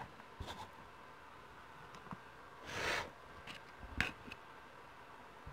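Scratching of a metal fork against a plastic takeout container as spaghetti is dished out: a few sharp clicks and light ticks, with one longer scrape about three seconds in.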